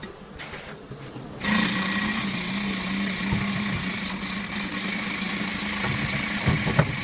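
A motor starts abruptly about a second and a half in and then runs steadily with a constant low hum.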